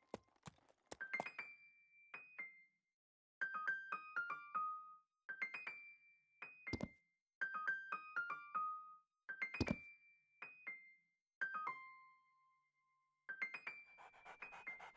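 Light piano-like keyboard music in short phrases of quick notes, with brief pauses between the phrases. Two knocks land with the notes, about seven and ten seconds in.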